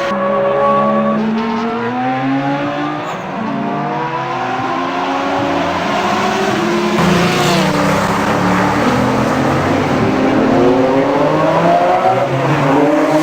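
Car engine sound effect revving up and down, its pitch rising and falling over and over, with a brief noisy screech about seven seconds in.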